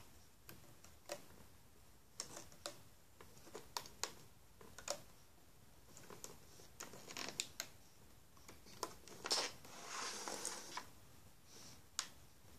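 Faint, irregular light clicks and taps, with a short rustle about nine to ten seconds in: a crochet hook working rubber bands on the pegs of a clear plastic rubber-band loom.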